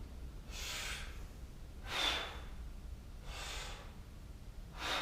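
A person breathing hard in and out during pistol squats: four strong breaths about a second and a half apart, timed to the squat's way down and back up.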